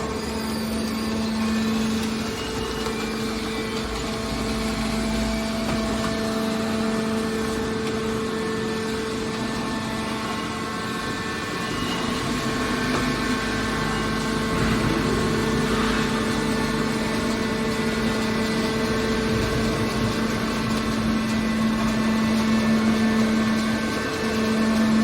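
Hydraulic scrap-metal baler's power unit running: a steady mechanical hum with one constant low tone, which breaks off briefly about two seconds in and again near the end.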